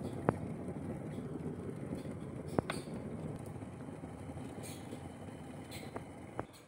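Stainless-steel electric kettle heating water close to the boil, giving a steady low rumble with a few sharp clicks; the rumble dies away near the end.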